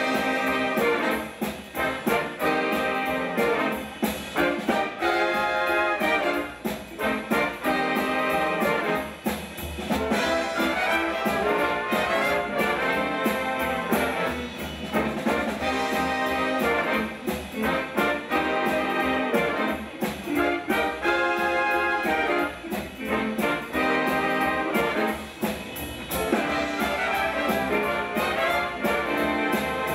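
Swing big band playing, led by its brass section of trumpets and trombones with saxophones, punching out short riffs that repeat every couple of seconds over a steady rhythm section.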